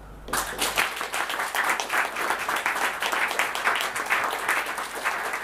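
Audience applauding in a small room. Many hands clap densely together, starting just after the beginning.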